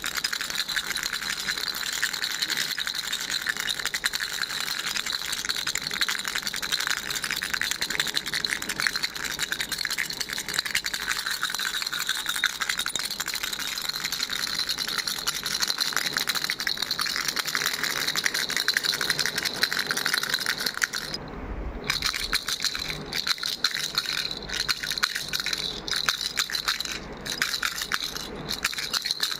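Baby rattle shaken fast and continuously, a dense stream of small rattling clicks. About two-thirds of the way through it stops briefly, then goes on in choppier shakes with short pauses.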